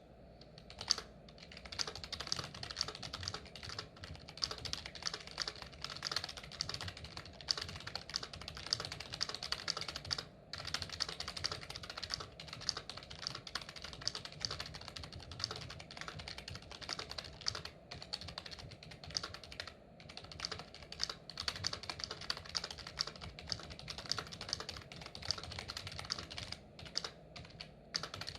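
Mitsumi KFKEA4XA keyboard with Mitsumi Type KFK rubber-dome switches being typed on continuously: a rapid stream of keystrokes with a few brief pauses.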